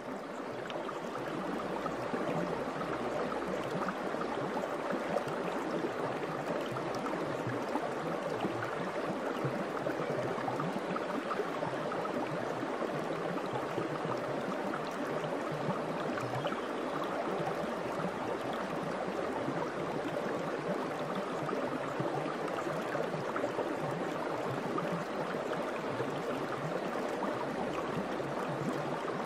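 Steady rushing and babbling of running stream water, an even sound with no beat or melody, fading in over the first second or two.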